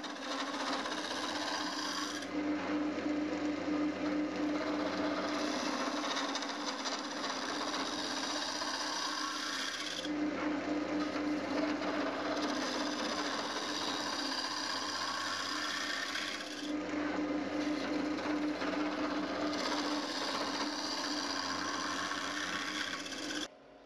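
Wood lathe running while a homemade 16 mm gouge hollows the inside of a spinning walnut blank: a continuous scraping cut over the lathe's steady hum, swelling and easing every few seconds as the tool is worked. It cuts off suddenly just before the end.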